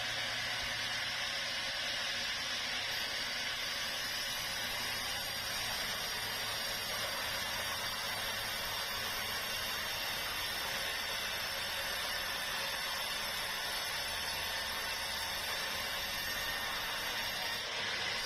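Sawmill saw running steadily while sawing a meranti log, a constant even hiss with a low hum beneath it.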